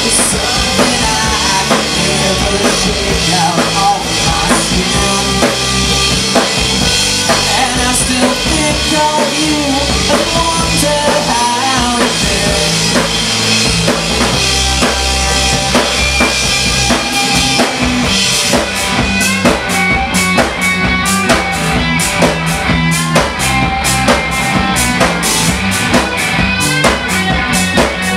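Live rock band playing loudly: two electric guitars, electric bass and drum kit. About two-thirds of the way through, the steady cymbal wash drops away and the drums switch to crisp, evenly spaced hits.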